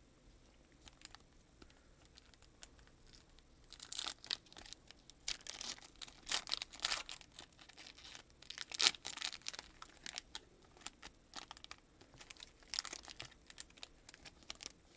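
Foil wrapper of a Topps Chrome trading-card pack being torn open and crinkled by hand, in a run of crackling rips starting about four seconds in and loudest around the middle.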